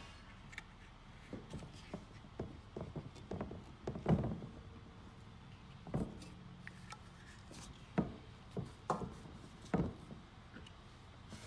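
Rubber gaskets being worked onto the steel tubes of a roof cargo rack: rubbing and scattered light knocks as the metal bar is handled, the loudest knock about four seconds in.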